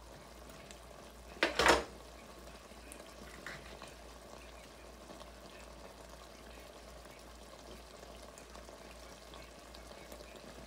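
Browned ground beef sizzling faintly and steadily in an enamelled pot on a gas burner, with one short, loud clack about one and a half seconds in.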